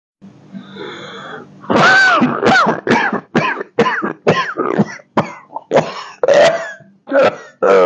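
A man clears his throat, then coughs about a dozen times in quick succession, roughly two coughs a second. The coughing is put on for show; he says he is not ill.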